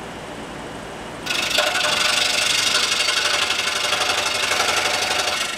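Scroll saw running and cutting a small block of wood. About a second in, the sound turns much louder and hissier, with a strong high edge, and it drops back just before the end.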